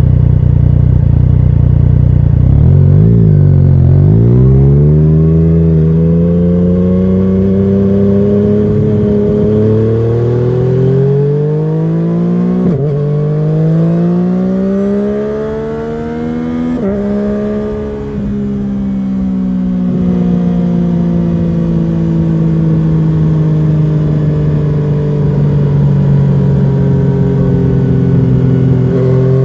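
Yamaha MT-09's inline three-cylinder engine, heard through a Scorpion Serket carbon slip-on exhaust, pulling hard through the gears. The revs climb and drop sharply twice on quick upshifts. After that the engine runs on with the revs easing slowly down.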